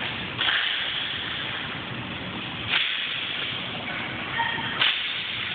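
Three sharp cracks of hockey sticks striking shots on a hard indoor rink floor, each echoing briefly in the large hall, over a steady hiss.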